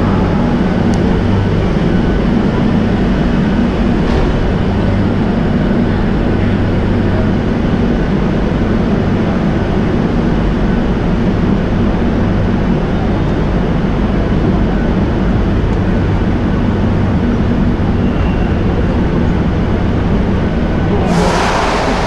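Steady low hum and rumble of a Madrid Metro station's underground ambience, with a constant deep drone. A brief rush of noise sweeps across all pitches about a second before the end.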